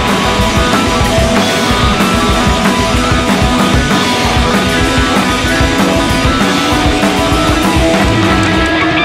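Rock music with electric guitar and drums, playing loudly at a steady beat.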